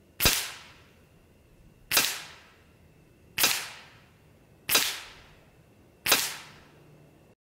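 Five shots from a .25 caliber Evanix Max Air semi-automatic PCP air rifle, fired in rapid succession about a second and a half apart. Each shot is a sharp crack that dies away quickly.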